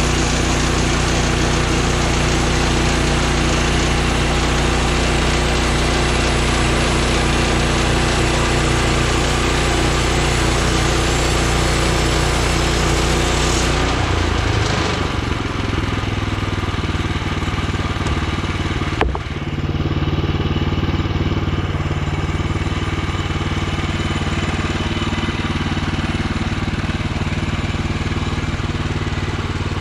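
Woodland Mills HM126 portable bandsaw mill running, its engine under load with the band blade sawing through a log. About 14 s in the hissy cutting noise stops and the engine note changes to a plainer running sound. A single sharp knock comes about 19 s in.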